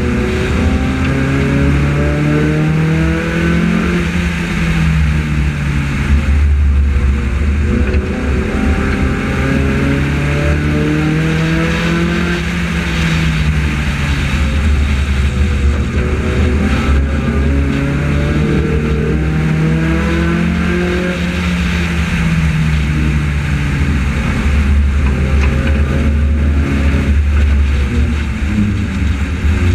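A front-wheel-drive Honda race car's engine heard from on board under racing load. It revs up on each straight and falls off into each turn, about every eight seconds, over a heavy low rumble of road and wind.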